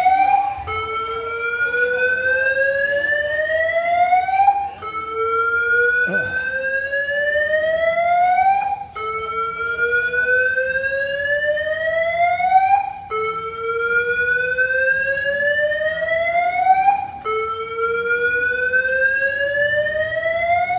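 Airport terminal alarm siren sounding a slow rising tone. Each sweep climbs steadily for about four seconds, then drops back and starts again, about five times over.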